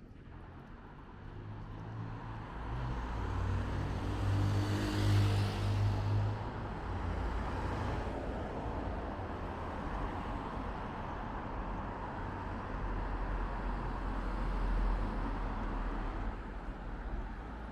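Street traffic: a motor vehicle's engine passes close by, building to its loudest about five seconds in, then a steady traffic hum with another low rumble late on.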